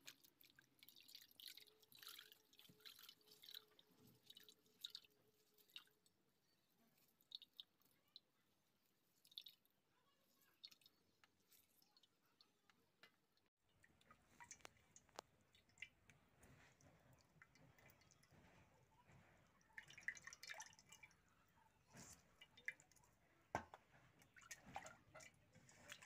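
Faint, scattered drips and small splashes of water as boiled leafy greens are swished by hand in a metal pan of cold water and wrung out, the water dripping back into the pan.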